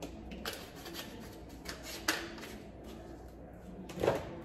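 Kitchen handling sounds while seasoning raw steak: a few light clicks and rustles of hands and seasoning containers, with one louder thump near the end.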